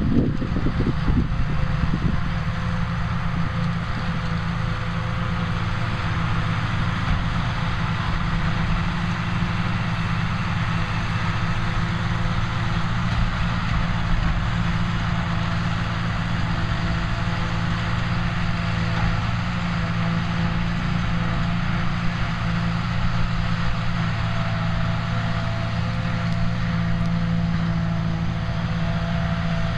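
New Holland tractor diesel engines and a trailed JF forage harvester running steadily while cutting silage. A low engine drone carries a few steady higher tones over it.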